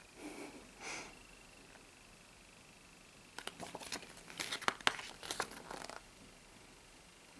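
Glossy paper booklet rustling and crinkling as it is handled and unfolded, with a cluster of soft crackles and ticks about halfway through.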